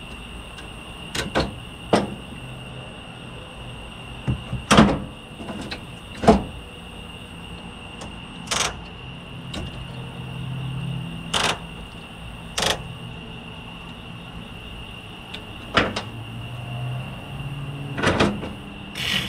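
Scattered clicks and knocks of hands working on a boat's fuel hose and fittings, at irregular intervals, over a steady high-pitched whine.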